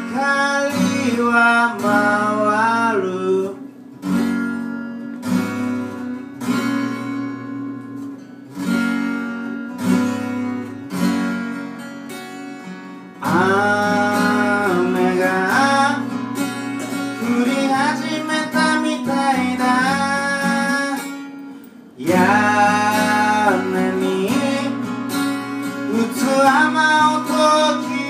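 A song sung over a strummed acoustic guitar. The voice sings a short line at the start, then the guitar carries on alone for about ten seconds before the singing returns.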